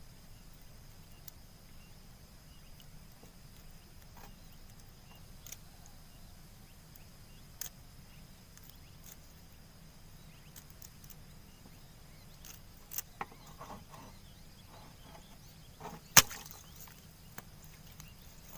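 Cast net being gathered and readied in the hands on a wooden dugout canoe: sparse faint clicks and rustles that grow busier near the end, with one sharp knock about sixteen seconds in. A faint steady high whine runs underneath.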